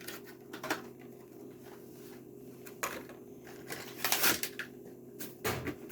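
Hot Wheels blister-card packaging being handled and opened: scattered plastic crackles and clicks, with a louder burst of crinkling about four seconds in, over a steady low hum.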